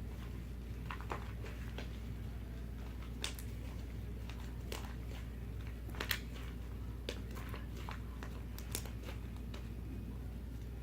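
Fluffy slime being handled and squeezed: scattered small clicks and pops over a steady low hum.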